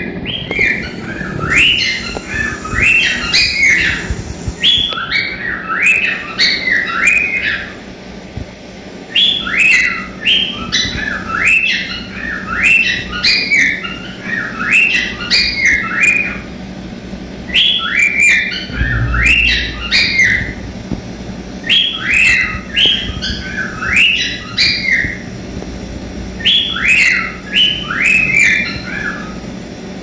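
Male cockatiel singing its whistled song: phrases of quick rising whistles and chirps, repeated over and over with short pauses between them.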